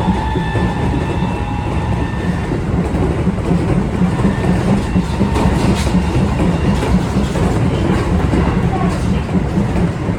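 Keio 8000 series train with Toshiba permanent-magnet-motor VVVF drive, heard from inside a motor car. A steady high-pitched motor whine fades out over the first couple of seconds, leaving the rumble of wheels on rail with a few clacks over rail joints.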